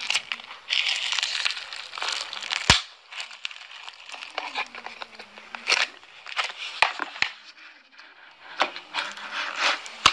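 Glossy slime being squeezed and poked in a plastic tub, making crackling, crinkling sounds in irregular bursts, with one sharp pop about two and a half seconds in.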